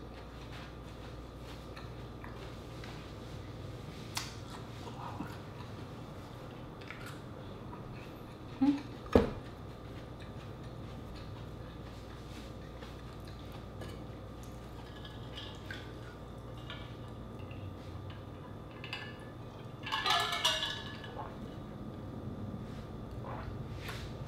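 A person eating: quiet mouth sounds and scattered faint clicks over a steady low room hum, with a single sharp knock about nine seconds in and a short vocal sound around twenty seconds in.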